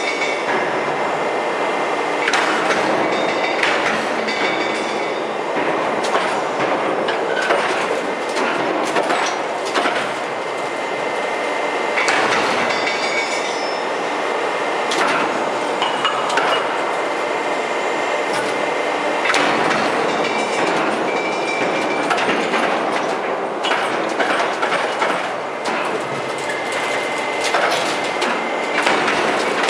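Open-die forging press working a red-hot nickel alloy bar: a loud, continuous industrial din broken by several sharp metallic clanks and knocks, with a thin high tone that comes and goes.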